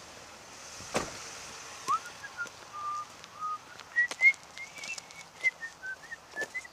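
A person whistling a short tune of quick notes that step up and down, with sharp crunches of footsteps on gravel and a thump about a second in.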